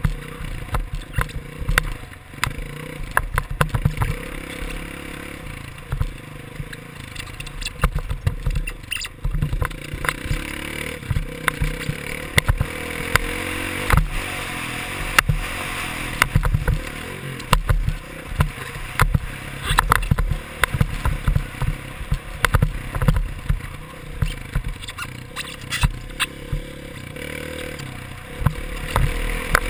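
Dirt bike engine running and revving as it is ridden around a dirt motocross track, heard from a helmet-mounted camera, with frequent irregular knocks and rattles throughout.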